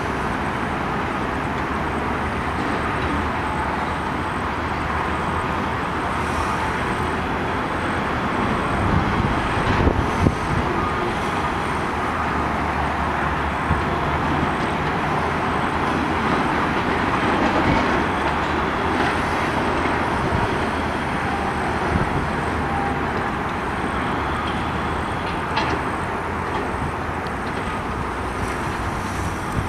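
Steady rumble of traffic and distant heavy machinery, with a few louder knocks about ten seconds in.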